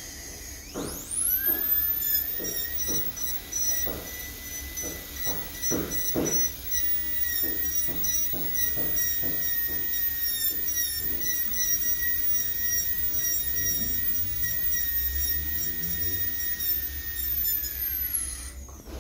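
Dental drill handpiece spinning up to a steady high whine about a second in, running while its bur bevels the margin of a class V cavity in a plastic model tooth, then winding down near the end. Scattered light knocks sound under the whine.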